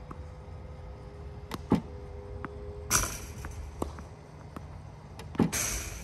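Tennis Tutor ProLite battery-powered ball machine firing tennis balls: two loud pops about two and a half seconds apart, about three seconds in and near the end. Fainter knocks of balls being hit and bouncing come in between, over a faint steady motor hum in the first half.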